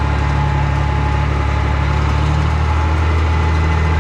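Farm tractor engine running steadily, heard from the open operator's seat as the tractor drives across the field, with a slight change in its note about three seconds in.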